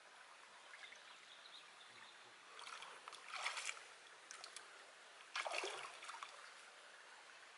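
Shallow stream trickling softly over rocks, with hands and feet splashing in the water twice, about three seconds in and again about five and a half seconds in, as they feel among the stones for crabs.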